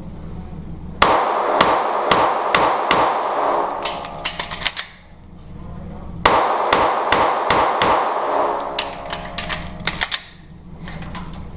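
Rapid pistol fire echoing in an indoor concrete-block shooting bay: a fast string of shots starting about a second in, a pause of over a second, then a second fast string.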